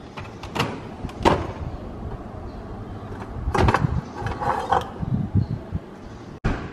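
An appliance door sliding open, then a series of knocks and clatters as a fluted metal tart tin is lifted off a metal baking tray.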